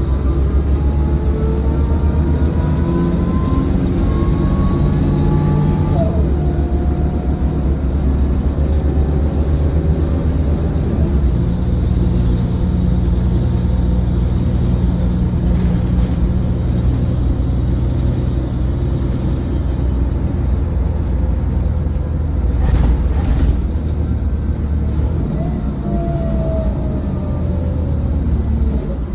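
Mercedes-Benz O500LE city bus heard from inside the cabin while driving: a steady diesel engine drone and road rumble, with rising whines as the bus accelerates. A short clatter comes about three quarters of the way through.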